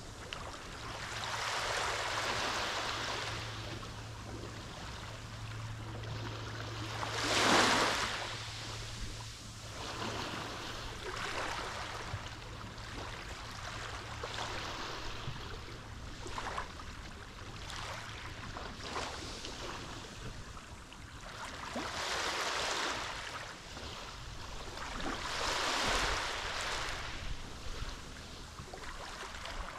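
Mediterranean sea waves washing in and drawing back in repeated surges every few seconds, the loudest breaking about seven seconds in. A faint low steady hum lies underneath and fades out about two-thirds of the way through.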